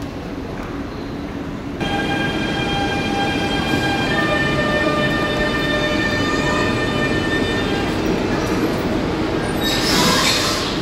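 DSB MF (IC3) diesel multiple unit pulling slowly into the platform with a low rumble. About two seconds in, a high squeal of several steady tones starts suddenly and lasts several seconds. A short loud burst of hissing noise comes near the end.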